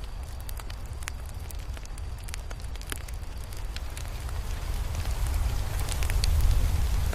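Crackling fire: scattered sharp pops and snaps over a steady low rumble, growing louder through the second half.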